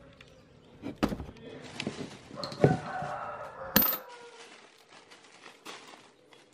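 Steel transmission gears of a motorcycle gear ratio set knocking together as they are handled: three hard metallic knocks, about a second in, near the middle and just before four seconds, with a short metallic ring after the middle knocks, then a few faint clicks.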